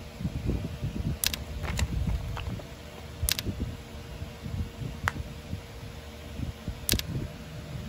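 Hands handling a stylus pen's box and accessories (sleeve, charger, cap): five sharp clicks of plastic and cardboard, spread out over the few seconds, over an uneven low rumble and a steady faint hum.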